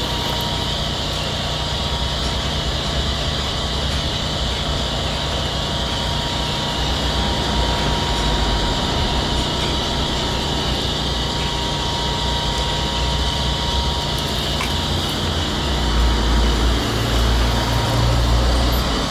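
Skoda Fabia TDI diesel engine idling steadily with the bonnet open, getting louder and deeper near the end.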